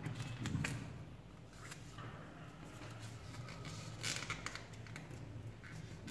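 Dollar-bill paper rustling and crinkling under the fingers as it is folded and creased, in a few short crackles.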